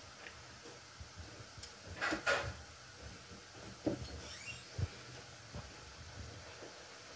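Ghee sizzling faintly around the edge of a corn-flour roti on a hot tawa, with a brief clatter about two seconds in and a couple of soft knocks near four and five seconds.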